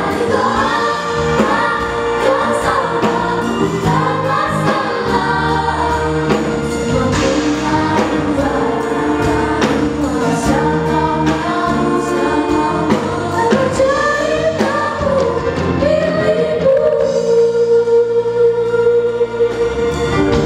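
Children's choir singing in Indonesian, with soloists on microphones over amplified backing music with a steady beat. The voices hold a long note near the end.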